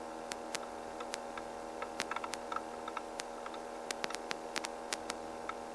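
A steady electrical hum and hiss on a helicopter's intercom audio feed, with scattered irregular clicks and ticks.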